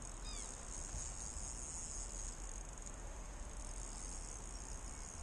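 Outdoor ambience: a steady high-pitched hiss with a low rumble underneath, and a short falling bird chirp about a third of a second in.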